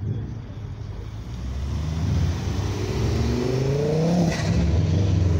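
Ford Focus RS's turbocharged five-cylinder engine accelerating away, its revs climbing and then dropping at a gear change about four seconds in with a brief burst of noise, before pulling on at a steadier note.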